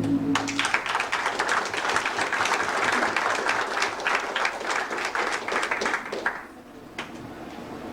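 Audience of a small church clapping for about six seconds, then dying away. The band's held final chord cuts off just as the clapping starts.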